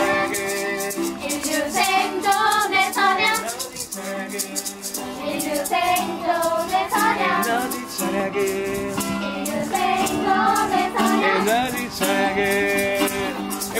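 Music: voices singing a melody over strummed acoustic string accompaniment, with a shaker rattling in a steady, quick rhythm.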